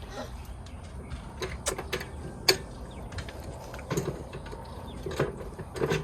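Scattered metal clicks and clinks of bolts, washers and brackets being handled and fitted during hand assembly of a mini bike, the sharpest knock about halfway through, over a steady low background hum.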